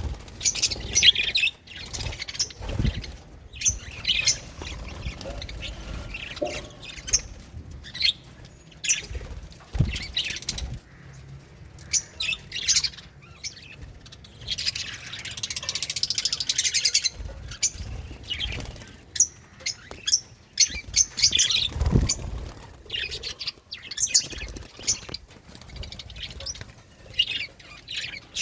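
Several budgerigars chirping and warbling: a steady run of short, high chirps with stretches of dense, continuous chatter. A few brief low thumps are heard among the calls.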